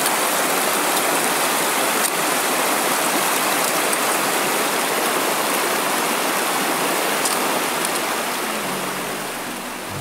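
Steady rush of water, an even hiss with no distinct drops or splashes, easing slightly near the end as low sustained music notes come in.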